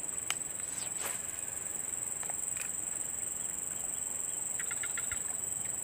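Steady high-pitched insect buzzing, with a few faint clicks early on and a brief run of rapid ticks near the end.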